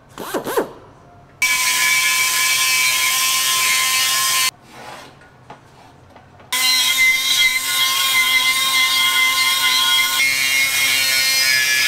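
Die grinder with a carbide burr grinding out the inside of a cast aluminum intake manifold. A brief spin-up is followed by two long runs of grinding with a steady high whine, broken by a pause of about two seconds in the middle.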